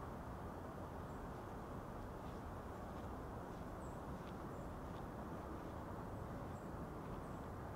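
Steady low rushing outdoor ambience, with a handful of faint, high bird chirps scattered through it.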